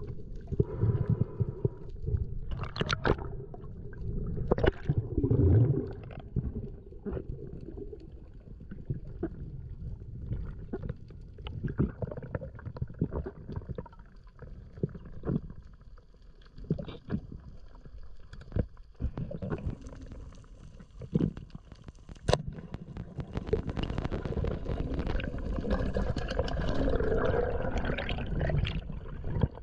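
Underwater noise on a spearfishing dive: a low rumble of moving water with many scattered sharp clicks and knocks. The water noise grows louder and steadier over the last several seconds.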